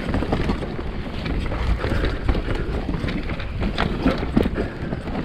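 Mountain bike riding down a rough, rocky trail: tyre noise and the bike rattling over rocks, with many small knocks, and wind buffeting the microphone.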